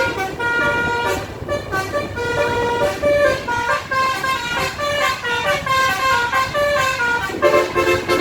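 Basuri telolet bus horn, a multi-tone air horn, playing a quick melody note by note; near the end it switches to fast repeated lower notes.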